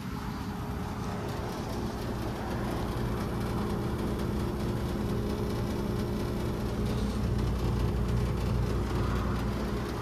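Carrier central air-conditioner condenser running: a steady compressor hum over the even rush of the condenser fan.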